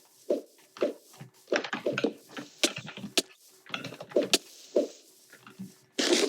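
Typing on a computer keyboard: irregular keystrokes, a few a second with short pauses, each a low thock, some with a sharp click, coming faster near the end.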